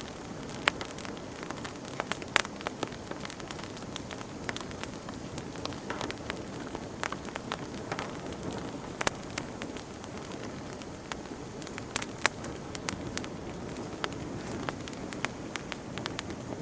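Campfire burning: a steady low rush with frequent, irregular sharp crackles and pops from the burning wood.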